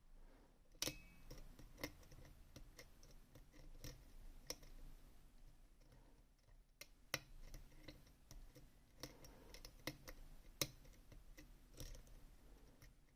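Faint, irregular metallic clicks and ticks of a lock pick working the pins of an ASSA Twin 6000 pin-tumbler lock, with a few sharper clicks standing out.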